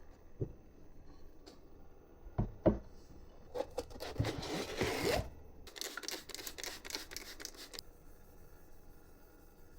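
Hands handling parts and packaging: a few light knocks, a rustle, then about two seconds of rapid clicking and crinkling.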